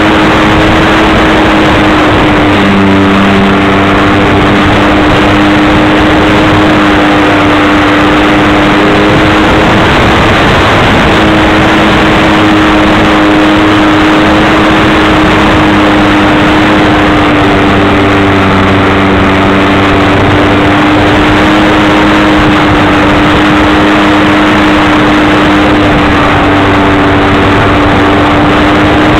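RC model plane's motor and propeller heard from a camera on the airframe: a loud, steady drone over a rush of air. The pitch wavers briefly about ten seconds in as the throttle changes.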